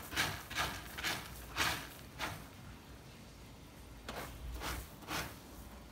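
A cat scratching and raking cylindrical pellet litter with its front paws, a series of short rustling scrapes: about five in the first two seconds, a pause, then three more around four to five seconds in.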